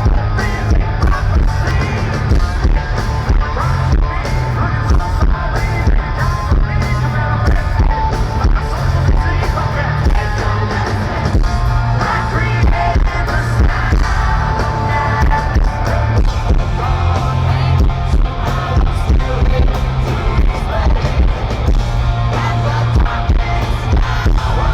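Alternative metal band playing live at full volume: guitars, heavy bass and drums under a sung lead vocal.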